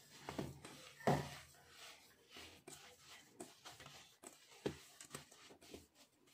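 Hands working a crumbly besan ladoo mixture of gram flour, ghee and sugar in a stainless-steel bowl: faint, irregular squishing and scraping. A few louder bumps stand out, the strongest about a second in and another a little before five seconds.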